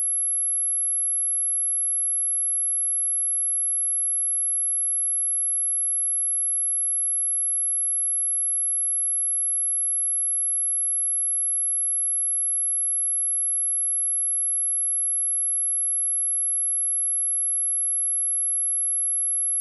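A steady, high-pitched 11126 Hz sine-wave test tone, one pure pitch held without change, as played to test a speaker or to shake dust and water out of it.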